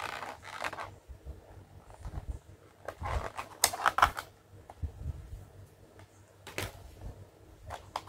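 Thin clear plastic blister packaging crinkling and rustling as it is handled, in bursts at the start and again around three to four seconds in, then a few sharp plastic clicks and taps from a toy plastic compact.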